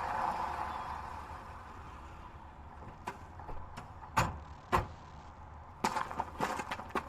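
Anime sound effects: a steady noise fades away, then sharp knocks and clicks follow. The loudest two come close together about four seconds in, and a quicker, irregular run of them starts near the end.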